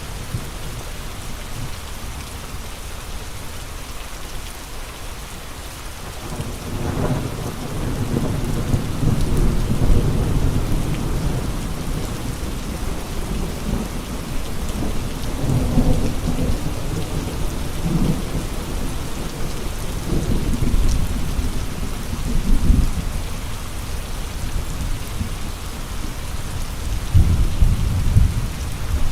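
Steady heavy rain hissing, with gusts of wind coming through in low rumbling surges from about six seconds in, the strongest near the end.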